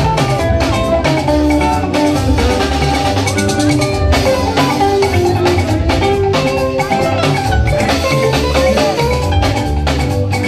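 Yoruba party band music in an instrumental stretch: steady, busy drums and percussion under pitched melodic lines, with no singing.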